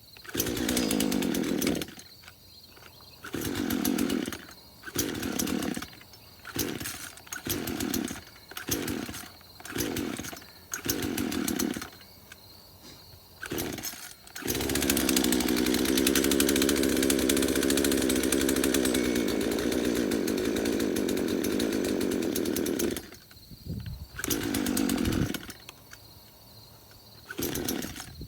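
Old Craftsman two-stroke chainsaw engine firing in short bursts about a second apart and cutting out between them, then running for about eight seconds before dying and sputtering again. It keeps stalling, which the owner takes for the saw having trouble picking up fuel after years of sitting.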